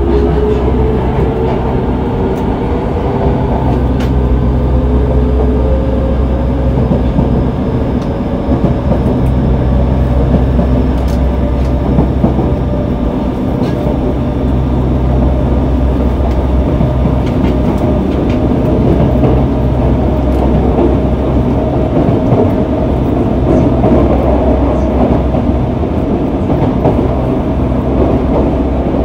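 Yokohama Municipal Subway 3000A train with Mitsubishi GTO-VVVF inverter running: the traction motor tone rises slowly in pitch as the train gathers speed. Under it is a steady rumble of wheels on the track, with a few scattered clicks.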